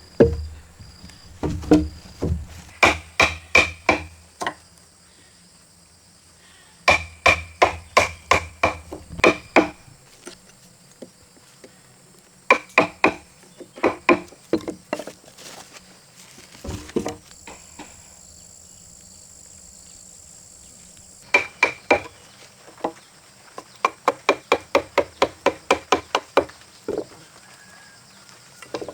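Hammer blows on timber, struck in several runs of quick, even strokes with short pauses between, each blow giving a brief metallic ring.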